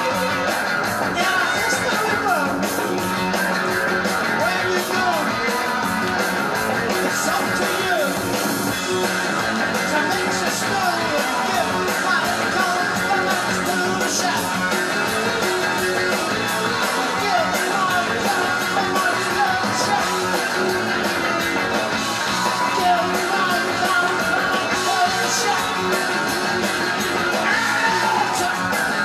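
Live rock band recording played from a vinyl LP: a guitar-led instrumental passage with the full band.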